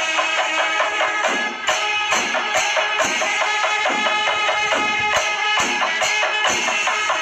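Kerala chenda melam: chenda drums beaten with curved sticks together with clashing elathalam hand cymbals, keeping up a steady, dense rhythm with ringing cymbal tones over the drum strokes.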